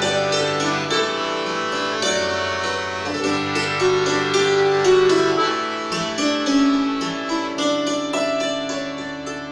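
Hammered dulcimer and melodeon playing a tune together: quick ringing hammer strikes over long held reedy notes, getting quieter near the end.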